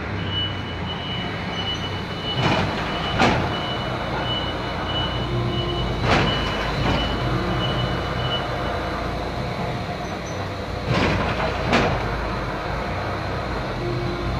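Machine-shop ambience: a steady rumble and hum of running machinery, broken by five sharp metallic clanks, two of them in quick succession about two and a half seconds in and another pair near eleven seconds. A thin high whine runs through the first part and stops about nine seconds in.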